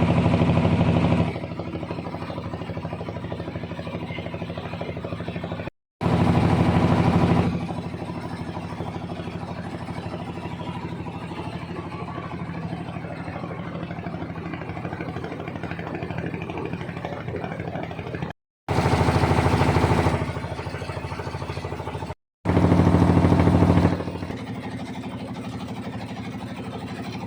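A motor engine running steadily, heard in several short clips cut together; each clip opens louder for a second or two, then settles to a steady run.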